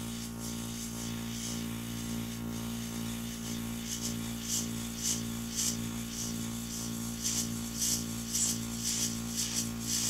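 Mini airbrush compressor running with a steady hum while the airbrush sprays ink. From about four seconds in, the spray comes in short hissing spurts, about two a second, as it is worked over the keycap.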